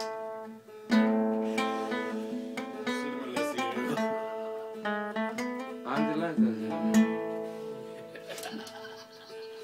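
Acoustic guitar being played: strummed chords mixed with picked single notes, the loudest strokes about a second in and about seven seconds in.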